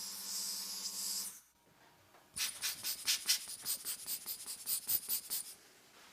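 A steady hiss over a low hum that stops about a second and a half in. After a short pause comes a run of quick rubbing or scraping strokes on a small part, about four a second, lasting about three seconds, typical of hand work at a watchmaker's bench.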